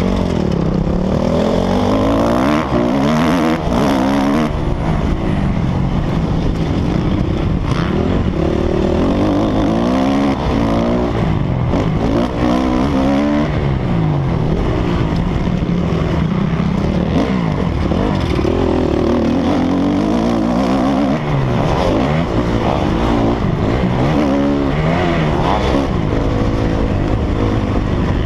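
Motocross bike engine revving up and falling off again and again as the rider accelerates, shifts and slows through the track's turns and straights, with wind noise over it.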